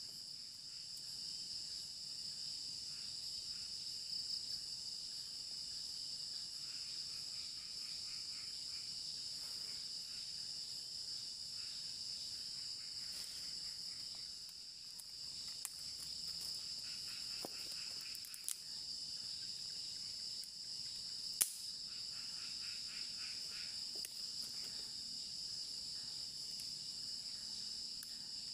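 Steady high-pitched chorus of crickets and other night insects, broken by a few sharp clicks, the loudest about three-quarters of the way through.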